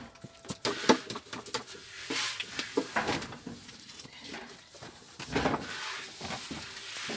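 Long, thin wooden rolling pin (oklava) rolling and knocking on a round wooden board as yufka dough is rolled out. It makes irregular taps and short rolling rumbles, with a longer, louder rumble a little past halfway.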